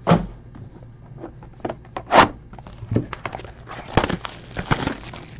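Foil trading-card pack wrappers crinkling as they are handled and opened, in a few short rustles and clicks, the loudest about two seconds in.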